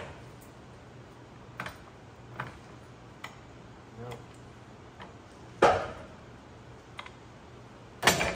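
Daytona hydraulic floor jack being pumped by its long handle: scattered metallic clicks and knocks on the strokes, with a louder clunk about halfway and another near the end.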